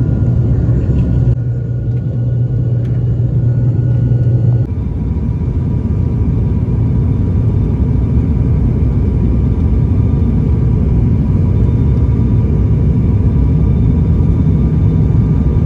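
Steady low rumble of airliner engines and airflow heard inside the passenger cabin, with a faint steady whine above it. The sound shifts abruptly about five seconds in.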